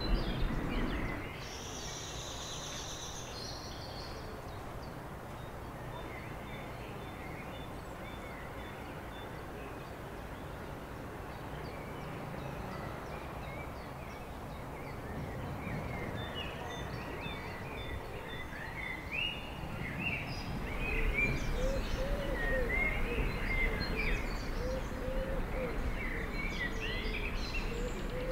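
Outdoor bird ambience: birds chirping over a steady background hiss, sparse at first and busier in the second half, with low repeated cooing calls in the last few seconds.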